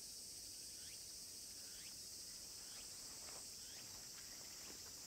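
Faint outdoor ambience: a steady high-pitched insect drone, with short falling chirps about once a second.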